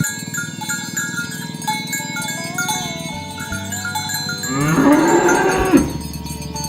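A cow mooing once, one long call about two-thirds of the way in that rises, falls and cuts off, over background electronic music with a chiming melody.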